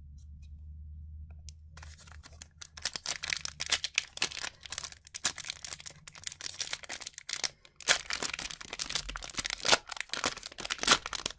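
Foil wrapper of a hockey card pack being crinkled and torn open. The dense crackling and ripping starts about two seconds in, with the loudest rips about eight seconds in and again just before the end.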